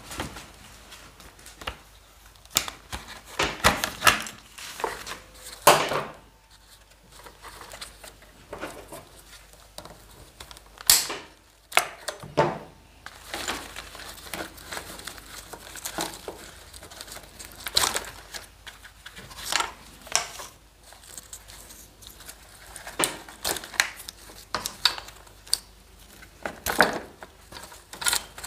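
Handling noise from a Yamaha BWS scooter's wiring harness being worked by hand: wires and plastic connectors rustling and rubbing, with irregular sharp clicks.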